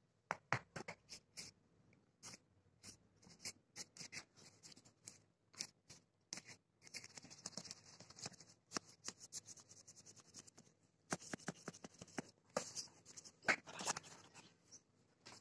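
A kitten's paws and claws patting and scratching on notebook paper: irregular light taps and scrapes, with longer rustling scratches in the middle and again towards the end.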